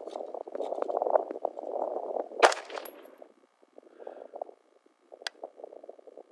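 A single rifle shot about two and a half seconds in, while zeroing a red dot sight, with a brief ringing tail. A thinner sharp crack follows about five seconds in. Frogs croak steadily in the background.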